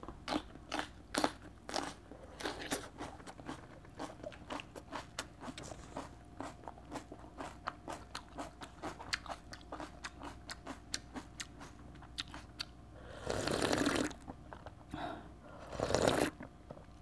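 Close-up crunchy chewing of raw bell pepper (paprika), a crisp crunch about three times a second. Near the end come two longer, louder bursts of crunching.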